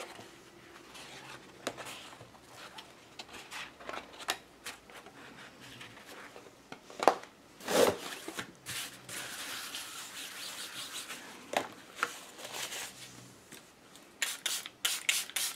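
A sheet of wet watercolour paper being handled and slid across a craft mat, with soft rubbing and a few louder rustles. Near the end, a quick series of short spritzes from a small hand-pump spray bottle.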